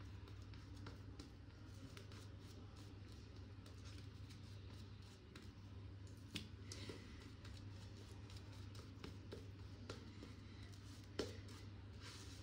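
Faint scratchy rubbing strokes of a wet shave against facial stubble, with two sharper ticks, about six and eleven seconds in.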